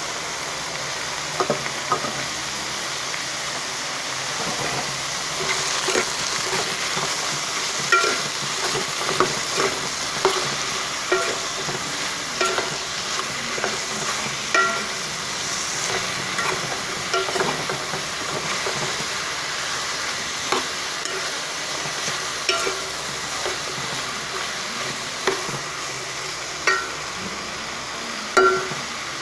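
Bottle gourd and eggplant sizzling in hot oil in a pan while being stirred, with a steady hiss and irregular knocks of the spatula against the pan, some ringing briefly.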